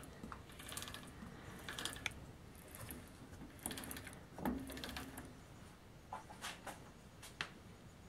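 Faint, irregular light clicks and knocks, a few at a time, over quiet room tone.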